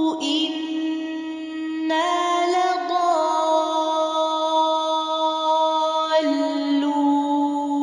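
A single voice reciting the Quran in slow, melodic tajweed style, holding long drawn-out notes. The pitch steps to a new note about two and three seconds in and drops to a lower note about six seconds in.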